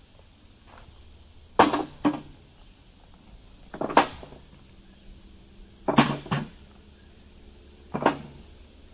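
Hard knocks: four double strikes about two seconds apart, each with a short ring.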